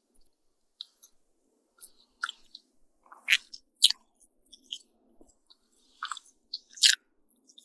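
Close-miked chewing of pancake and bacon: intermittent wet mouth sounds and sharp crunchy bites with short pauses between them.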